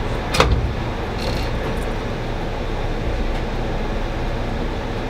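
Steady rumble of a diesel passenger locomotive heard from inside its cab as the train gets under way, with one sharp click about half a second in.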